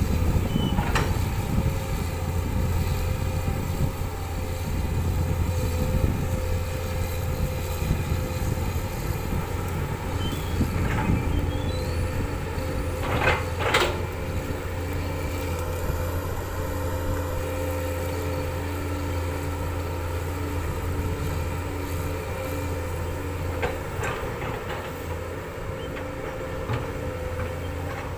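Komatsu PC 200 excavator's diesel engine running steadily under load while it clears scrub, with a few sharp knocks and cracks, two of them close together about halfway through.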